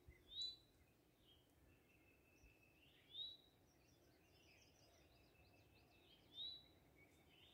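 A songbird repeating a short rising call three times, about three seconds apart, with fainter birdsong around it against a near-silent background.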